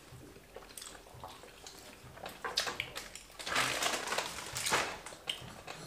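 Close eating sounds from people eating wheat fufu with ogbono soup by hand: chewing and wet mouth noises, with short clicks and a louder, denser run of noisy smacking sounds in the middle.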